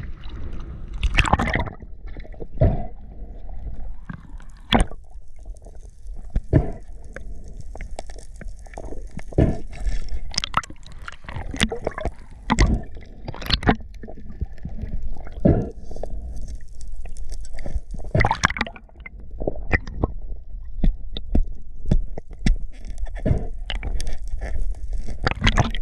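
Water splashing and gurgling, with a steady low rumble and many irregular sharp knocks.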